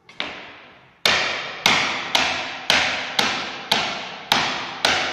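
A soil-filled shrinkage dish being knocked down onto a wooden table top in a steady run, about two knocks a second after one lighter first knock. Each knock has a short ring. The blows settle the soil paste so it spreads to the edges of the dish.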